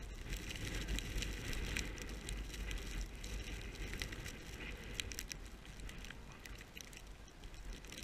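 Wind buffeting the camera microphone as a low rumble, with scattered crunching and rustling of deep snow and ski clothing as a skier moves close by. The rumble eases a little toward the end.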